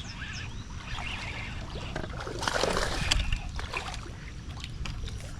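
Water splashing briefly about two and a half seconds in, over a steady low rumble, with small birds chirping.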